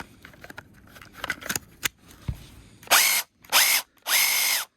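A few light clicks and handling, then a Bosch PSR 14.4 cordless screwdriver run in three short trigger pulls: each time the motor whines up quickly to a steady high pitch over a harsh noise and stops abruptly. The replacement motor's pinion has 13 teeth instead of the original 12, and the owner judges the test a complete failure.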